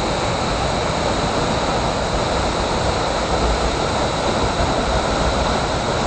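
A tall, slender waterfall pouring into its plunge pool close by: a steady, unbroken rush of falling water.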